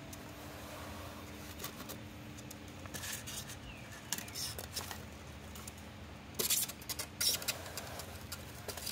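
An expanded polystyrene foam sheet being handled while a hot-wire ring cutter bores circular holes in it: faint rustles and squeaky crackles of foam, louder for a moment a little past halfway, over a steady low hum.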